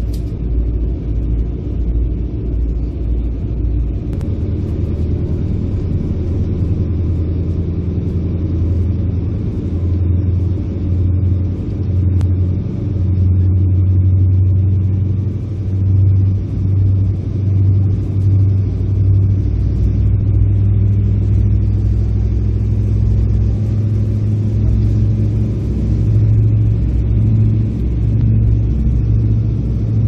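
Diesel engines of a Soviet Kometa hydrofoil running under way, heard inside the passenger cabin as a loud, steady low rumble that grows a little stronger about halfway through.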